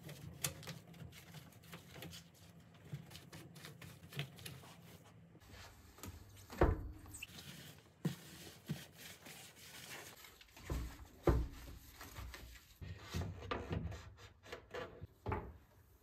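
Rubber-gloved hands and a cloth wiping and scrubbing an oven, with scattered clicks and knocks against its parts and a few louder thumps.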